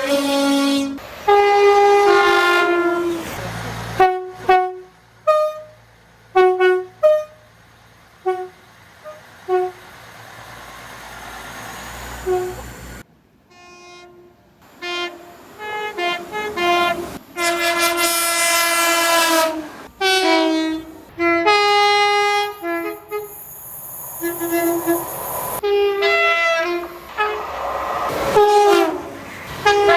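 Train horns sounding two-note blasts across several spliced recordings: a run of short toots, then longer, louder blasts.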